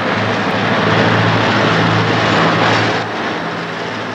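A steady rushing engine noise with a low hum underneath, swelling toward the middle and easing off over the last second.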